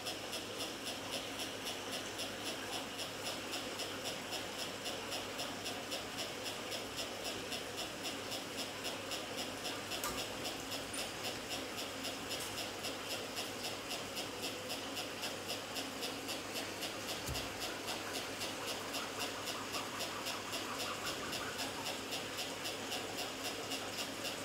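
A steady machine hiss that pulses evenly about three times a second, with a brief click about ten seconds in and a short low bump a few seconds later.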